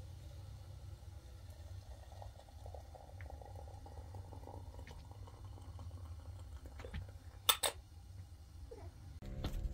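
Small propane-fed gas burner running under a kettle, a steady low rumble of the flame, with two sharp clinks about seven and a half seconds in.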